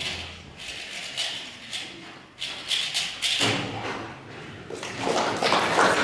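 Scattered clicks and taps in a large hall, then crowd noise swelling and growing louder from about five seconds in as applause and chatter begin.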